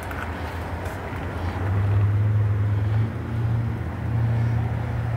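A motor vehicle engine running nearby: a steady low hum that swells louder about one and a half seconds in and stays up, over light outdoor background noise.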